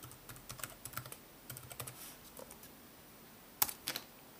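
Password being typed on a MacBook Pro's built-in laptop keyboard: a run of soft key clicks, then two louder key presses about three and a half seconds in.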